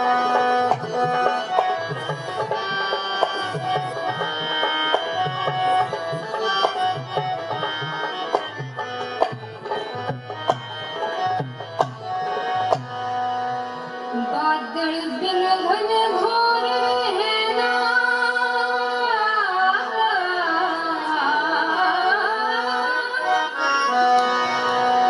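Haryanvi ragni folk song: a hand drum beats a rhythm under held harmonium-like reed chords, then a little past halfway a woman's solo voice enters singing in long, bending lines as the drum drops out.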